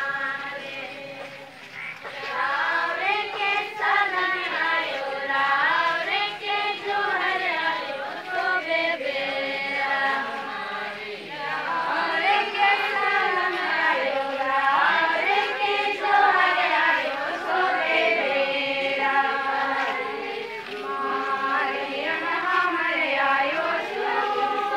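A crowd of women, men and children singing a devotional hymn together as a procession, the melody moving in long phrases with a short break about a second and a half in.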